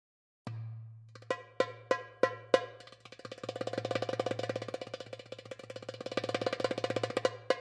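Percussive background music starts about half a second in: pitched strikes over a steady low bass note, about three strikes a second at first, then a fast run of rapid strikes from about three seconds in, easing back to spaced strikes near the end.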